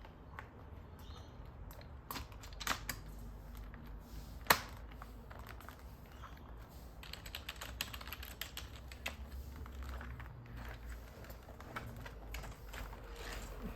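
Plastic clicks and taps from a Logitech wireless keyboard being handled, its keys clicking irregularly. There is one sharp, louder snap about four and a half seconds in, and the clicking is busier in the middle of the stretch.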